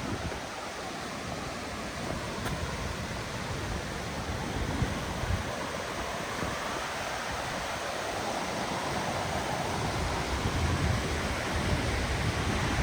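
Ozone Falls' waterfall rushing in a steady wash of water noise, slowly growing louder toward the end, with low gusts of wind buffeting the microphone.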